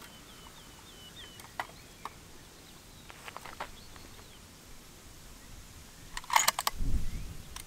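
Small birds chirping in open countryside, with a few soft handling clicks from the rifle. About six seconds in, a quick rattle of sharp clicks comes with a low thump, the loudest sound here.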